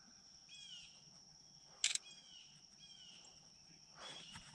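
Faint outdoor ambience: a steady high-pitched insect drone with short chirping bird calls repeating over it, and one sharp click a little before two seconds in.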